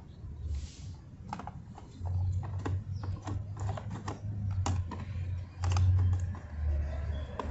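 Toy garbage trucks being handled: a run of irregular sharp plastic clicks and clacks, over a low rumble that comes in about two seconds in.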